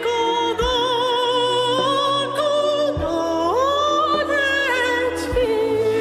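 A man singing a Russian pop ballad live into a microphone over a band, his held notes wavering with vibrato, one gliding up to a higher note about halfway through; a drum beat thumps underneath every couple of seconds.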